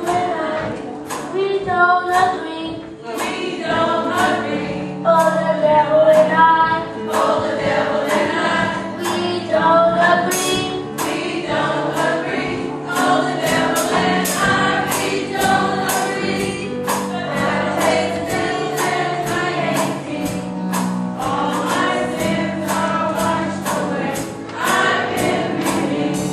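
Children's gospel choir singing, with a steady beat of about two strikes a second underneath.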